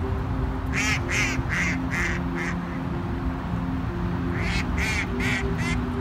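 Ducks quacking in two quick runs of short calls, about five and then four, with a pause between.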